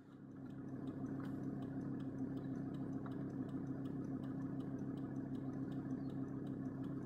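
Volvo 850 TDI's five-cylinder turbodiesel idling steadily, with a regular light ticking over the engine hum.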